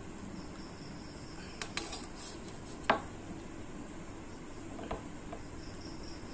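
Steel dishes clinking as curry is served onto a steel plate of rice: a few light clicks and one sharp clink about three seconds in, over a steady background hum.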